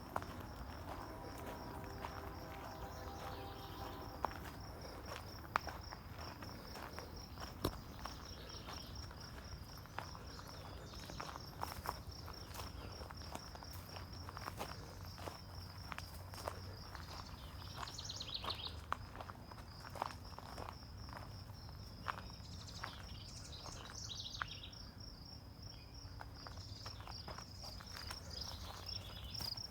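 Insects chirping in a steady, high, rapidly pulsing trill, with scattered footsteps.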